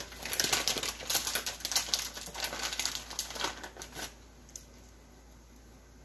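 Plastic bag of sliced almonds crinkling and rustling in a gloved hand as almonds are shaken out of it, for about four seconds, then stopping.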